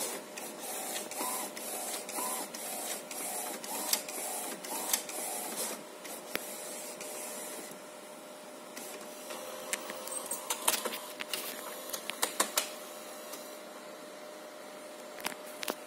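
HP Designjet 130 inkjet printer printing a printhead alignment pattern: the print carriage shuttles back and forth with short motor whirs about twice a second for the first six seconds. It then goes quieter, and a rapid run of mechanical clicks and clacks follows in the second half.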